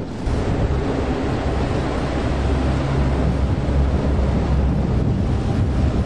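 Strong wind buffeting the microphone over the rush of choppy sea water, a steady noise heaviest in the low end.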